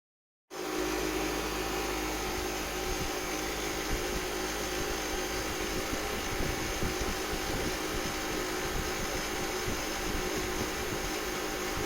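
A small electric motor running steadily with a strong airy hiss, cutting in abruptly about half a second in.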